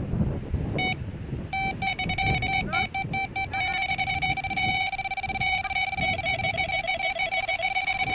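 Electronic carp bite alarm going off as a fish takes line in a run: a single beep about a second in, then rapid beeps that quicken into an almost continuous tone, pulsing toward the end.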